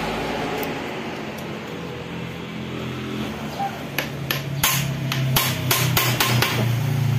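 Hammer blows on a hand impact driver seating the bolt of a Yamaha Mio engine's oil pump gear: about ten sharp metallic strikes, roughly three a second, starting a little past halfway.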